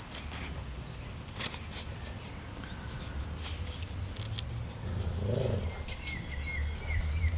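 Garden ambience with a steady low wind rumble on the microphone and scattered small clicks. A short low growl-like sound comes about five seconds in, and a bird's wavering chirps run through the last second or so.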